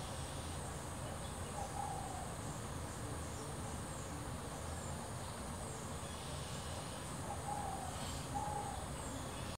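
Tropical forest morning ambience: a steady high-pitched insect drone, with a bird giving a few short warbling calls, once early and twice near the end.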